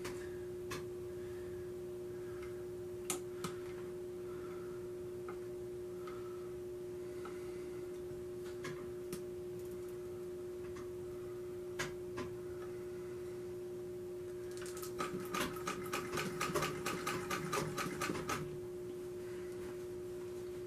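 Singer treadle sewing machine sewing a short run of stitches near the end, a quick even clatter of about five stitches a second lasting three or four seconds. Before it come a few single clicks as the machine and the cloth are set up. A steady low hum runs underneath throughout.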